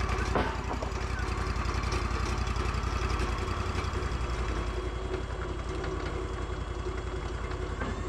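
Wood-Mizer LT40 sawmill's engine idling steadily with an even pulse, and a single knock about half a second in.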